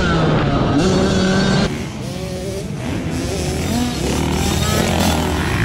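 Background music for about the first second and a half, then a motocross dirt bike's engine revving up and down as the rider works the throttle around the track and over a jump, its pitch rising and falling.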